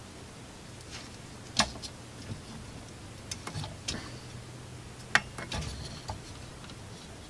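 Scattered small clicks and taps of hand tools and parts being handled on an opened electronic chassis, the two sharpest about one and a half and five seconds in. A faint steady hum runs underneath.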